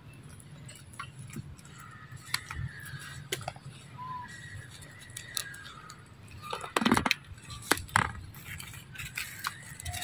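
Macaques moving and handling sticks and food on dry leaf litter: scattered small clicks and crackles, with a louder burst of rustling and crackling about seven seconds in and another shortly after.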